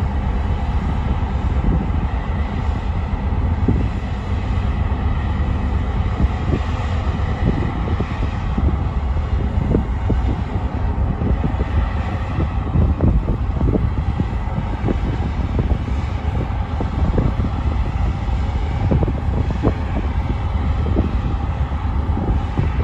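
Loud, steady low rumble of the ferry Ulysses's engines and thrusters as the ship pulls away from its berth, with a faint steady hum above it and irregular low thumps throughout.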